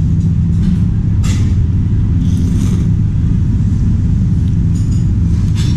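A steady low rumble throughout, with a few short slurps as noodles are eaten, about a second in, midway and near the end.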